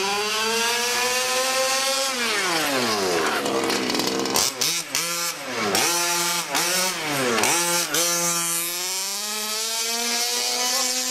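Nitro RC car's small two-stroke glow engine revving as it drives: a buzzy pitch climbs for about two seconds, falls away, then jumps up and down in several quick blips before climbing again. A lower steady hum runs underneath.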